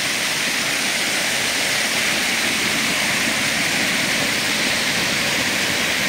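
A narrow waterfall in full spring flow, pouring into a rock pool: a steady, even rush of falling water.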